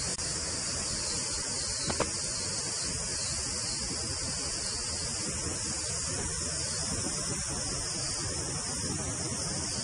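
Heavy storm rain falling steadily, a constant hiss, with a single knock about two seconds in.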